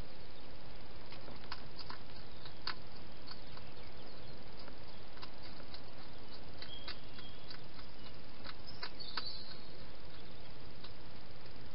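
Hedgehog feeding at a bowl: irregular crisp clicks of chewing and crunching, several a second at times, over a steady hiss.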